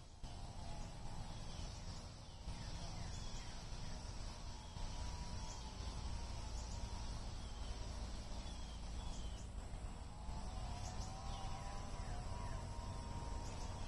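Outdoor ambience: a steady high insect drone over a low rumble, with scattered short falling chirps.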